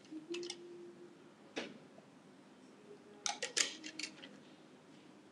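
Light clicks and taps from a small container being handled on a counter. A short squeak comes near the start, a single tap about a second and a half in, and a quick run of clicks and knocks around three to four seconds in.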